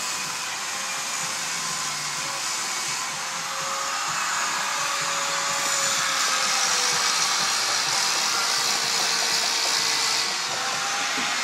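A handheld power tool working a Bath stone fireplace header, with a steady whirring hiss. It gets louder and brighter from about five seconds in and drops back near the end.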